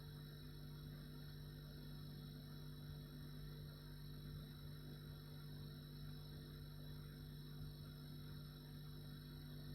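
Refrigerator running: a faint, steady hum made of a few unchanging tones, the strongest low, over a light even hiss.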